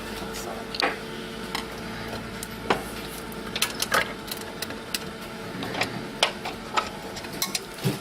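Irregular small clicks and taps of hand tools and screws as a 3D printer's front panel is unscrewed and worked loose, over a steady machine hum.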